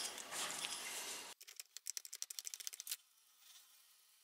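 Hand ratchet clicking rapidly for about a second and a half, a fast run of sharp clicks, as it works a crow's-foot wrench to back out a power steering pump's high-pressure fitting.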